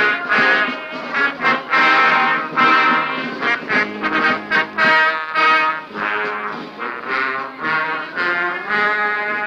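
Brass instruments playing music, a string of sustained notes that change every half second or so.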